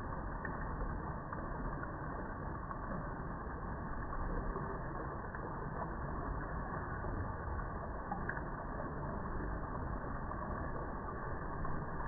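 Water rushing steadily at a river weir: a continuous even rush of flowing water with no breaks or changes.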